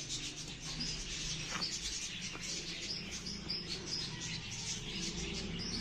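Small birds chirping busily and continuously, many short high-pitched chirps overlapping, with two faint taps partway through.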